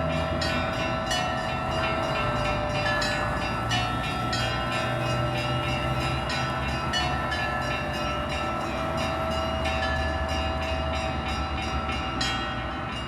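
Russian Orthodox church bells ringing in a full peal: quick, overlapping strikes, several a second, over the steady ringing of the larger bells.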